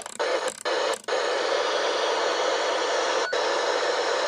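Radio-style static hiss, a steady loud band of noise with brief dropouts, a few in the first second and one about three seconds in.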